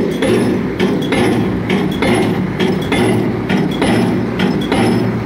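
Pile driver hammering a concrete bridge pile: regular sharp blows at about two a second over the rig's running engine.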